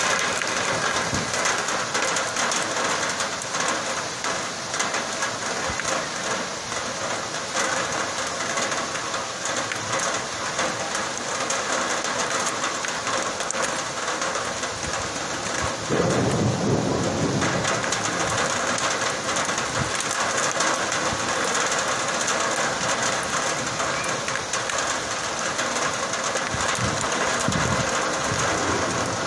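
Heavy downpour, rain pouring steadily during a strong thunderstorm. A sudden clap of thunder comes about halfway through, and a lower rumble follows near the end.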